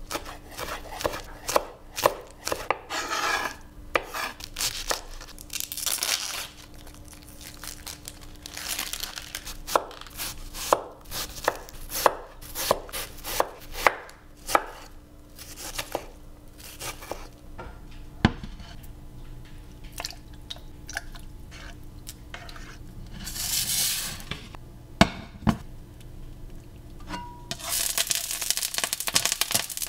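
Chef's knife chopping green onions and slicing an onion on a wooden cutting board: quick runs of sharp blade strikes on the board, sparser after the middle. Near the end, oil in a wok starts to sizzle.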